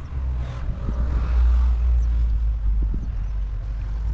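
Wind buffeting the head-mounted action camera's microphone: a low, blustery rumble that swells to its loudest about a second and a half in, with a few faint clicks.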